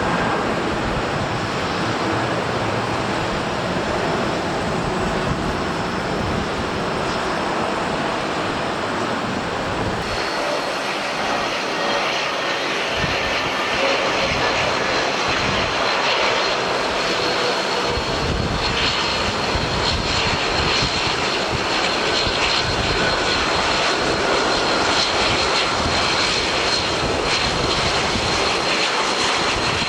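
Jet airliner engines running in gusty wind: the twin rear-mounted engines of a Mitsubishi CRJ700 regional jet on takeoff, then, after a cut about ten seconds in, an Airbus A320neo coming in to land with a steady high whine over the engine noise.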